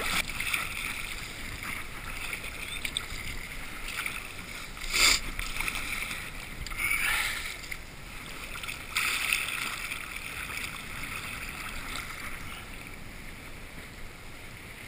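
Sea kayak moving through choppy water: steady sloshing and rushing water with three louder splashes in the middle.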